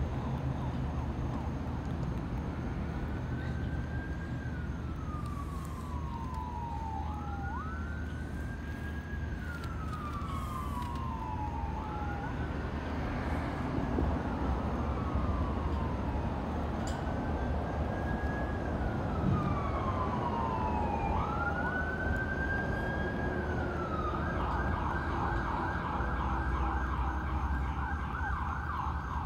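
An emergency vehicle siren sounding five slow wails, each rising quickly and then falling slowly over about four seconds, then switching to a fast yelp near the end, over a steady low rumble.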